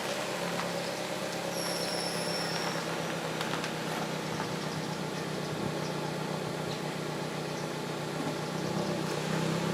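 Toyota Wish running with a steady mechanical hum, the abnormal noise being recorded on it. About two seconds in, a brief high-pitched whine sounds for a second or so, and the hum swells a little near the end.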